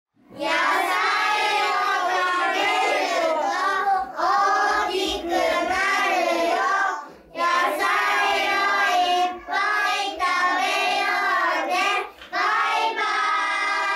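A group of young children singing together in unison, in several phrases with short breaks, ending on a long held note.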